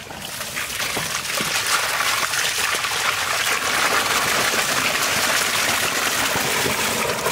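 A steady stream of water gushing into a large metal basin full of live eels, splashing and churning as hands rinse the eels.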